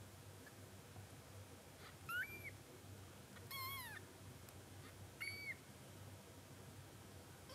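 Newborn kitten mewing: three thin, high-pitched cries, about two, three and a half and five seconds in, the middle one the longest and falling in pitch.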